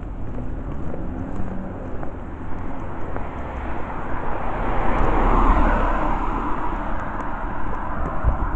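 Street traffic: a passing car's noise swells and fades about five seconds in, over a steady low rumble.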